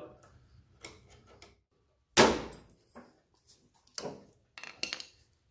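Screwdriver prying a small steel retaining clip off the chute's hinge pin on a riding-mower deck: one sharp metallic knock about two seconds in, then a few lighter clicks and taps near the end.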